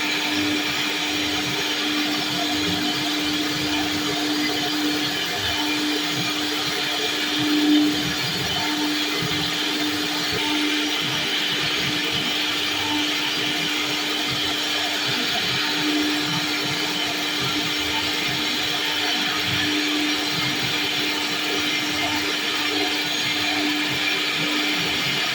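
CNC router spindle running steadily as it carves wood, a constant whine under the noise of the cut, briefly louder about eight seconds in.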